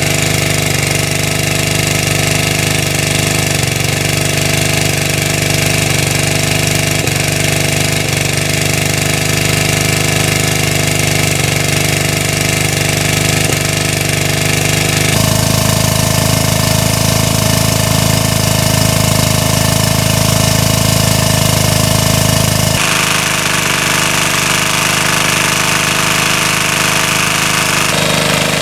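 Small engine-driven water pump running steadily, with water gushing from its discharge hose. The tone shifts abruptly about halfway through and again near the end.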